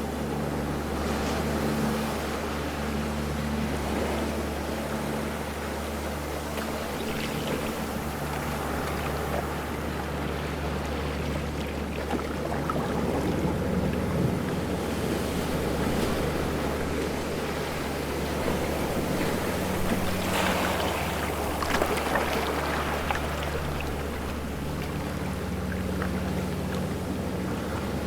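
Ocean waves washing, swelling louder about halfway through and again near the end, over a steady low hum.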